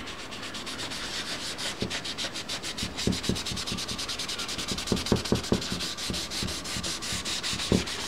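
Cotton ball rubbing dry pigment into a painting's surface in fast, rhythmic back-and-forth strokes, with a few soft knocks of the hand against the painting.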